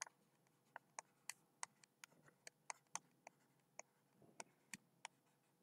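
Near silence broken by faint, irregular clicks of a stylus nib tapping and lifting on a tablet while handwriting words, about three a second.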